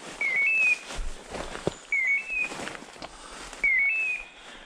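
A hunting dog's beeper collar giving its point-mode call, a short electronic chirp that dips then steps up in pitch, repeated identically three times less than two seconds apart: the dog is standing on point. Dry leaves rustle underfoot between the first and second calls.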